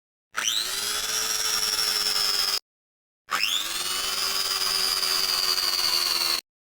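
Electric blender motor, heard twice. Each burst spins up with a quick rising whine and runs steadily for two to three seconds, then cuts off abruptly into dead silence, like a clip of the blender's recording cut short.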